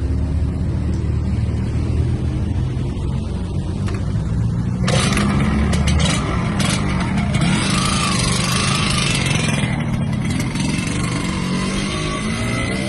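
Motorcycle engine running, then revved as the bike pulls away about five seconds in, with a louder rushing sound and a wavering whine lasting several seconds, over street traffic.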